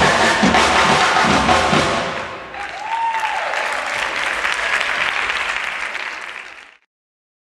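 Drums beating in a steady rhythm, stopping about two seconds in, then an audience applauding. The sound cuts off suddenly near the end.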